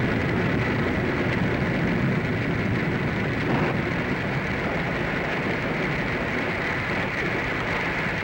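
Radio-drama storm sound effect: a steady rush of rain and wind with a low rumble underneath.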